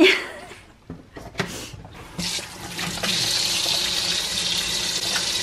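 A kitchen tap is turned on about two seconds in, and water runs steadily into a stainless steel sink while hands are rubbed and washed under the stream. There is a short, loud sound right at the start.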